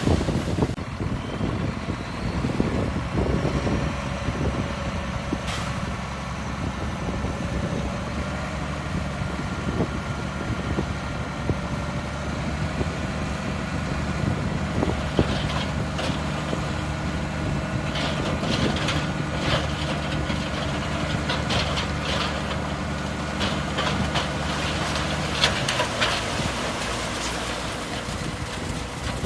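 Heavy diesel engine of a construction machine running steadily. From about halfway through, it is overlaid by repeated metallic clanks and knocks.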